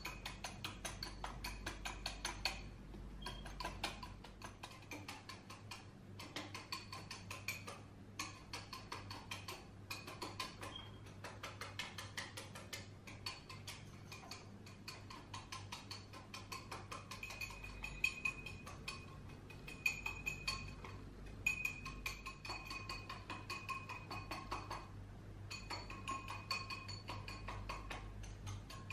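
Metal hand whisk beating dalgona coffee mixture in a glass bowl: fast, steady clinking of the whisk against the glass, with the bowl ringing, broken by a few short pauses.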